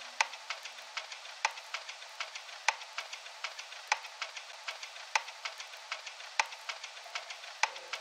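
Vinyl record surface noise: a steady crackle with scattered clicks and a louder pop about every second and a quarter.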